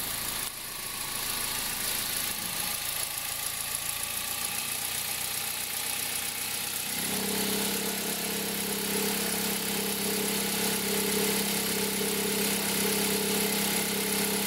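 2003 Toyota Corolla engine idling; about halfway through, a steady low hum comes in and holds. This is the cold-engine noise under investigation, which a stethoscope places loudest at the accessory drive belt and its tensioner.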